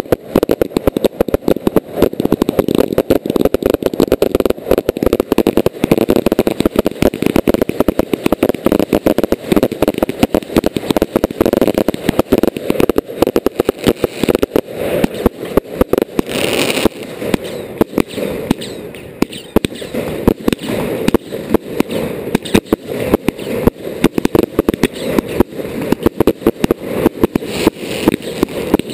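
Fireworks fired at close range: a rapid, unbroken volley of bangs as shots launch and burst overhead, with a short burst of hiss just over halfway through.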